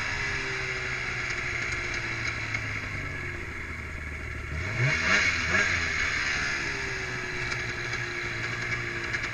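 Snowmobile engine running steadily, revving up briefly about five seconds in.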